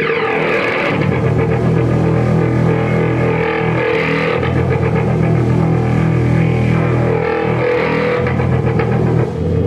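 Live noise music: layered, distorted drones run through effects, over a steady low hum. A high tone slides down in pitch in the first second, and rough hissy swells rise about four and eight seconds in.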